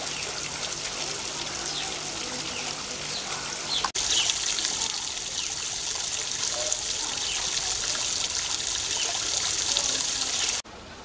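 A steady hiss of falling water, with faint short high chirps over it. It breaks off abruptly about four seconds in, returns louder, and drops to a quieter hiss near the end.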